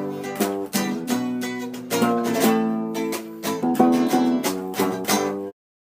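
Background music of a strummed plucked-string instrument, in repeated chords, cutting off suddenly near the end.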